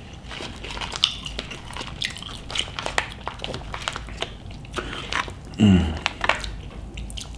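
Close-up chewing and biting of loaded fries topped with chips, a run of small mouth clicks and crunches. A short vocal sound from the eater comes about five and a half seconds in.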